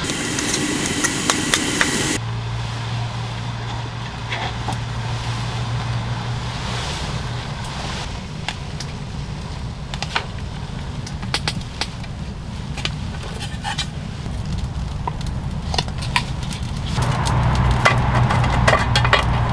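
A kitchen knife cutting through mushrooms on a plastic cutting board, several quick cuts, then a steady low hum with scattered light clicks and taps as aluminium mess tins and their lids are handled on the stove, the taps getting busier near the end.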